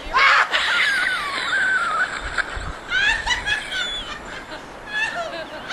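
A woman's high-pitched squealing laugh, wavering up and down in pitch, then breaking into short, rapidly repeated laughs from about three seconds in.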